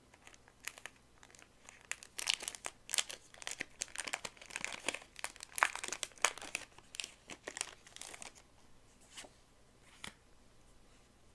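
A trading-card booster pack's shiny wrapper being torn open and crinkled in the hands: a dense run of crackles that thins out after about eight seconds, with a couple of soft clicks near the end.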